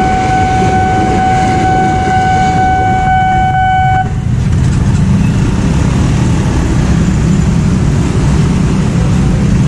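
A level-crossing warning alarm sounds one steady tone over the rumble of a passing electric commuter train, then cuts off suddenly about four seconds in as the train clears. Motorcycle engines then grow louder as the waiting traffic moves off across the tracks.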